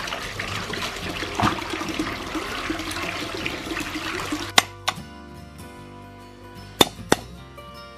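Tap water pouring into a metal basin and splashing as hands wash chicken feet in it. About halfway through the water sound gives way to a knife chopping ginger on a thick wooden block: four sharp chops in two quick pairs.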